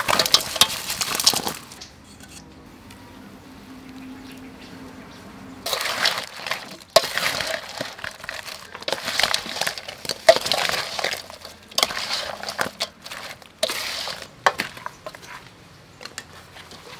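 Crispy fried chicken wings tipped from one metal bowl into a large stainless steel bowl, a rush of clattering that stops about two seconds in. After a pause, repeated crunchy rustling and scraping as the wings are tossed by hand with sauce in the steel bowl.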